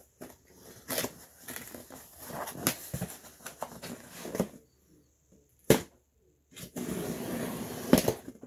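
Knife blade scraping along and slitting the packing tape on a cardboard box, with crackling of tape and cardboard. A single sharp snap comes a little before the middle, then the tape tears and the cardboard flaps are pulled open, ending in a loud crack near the end.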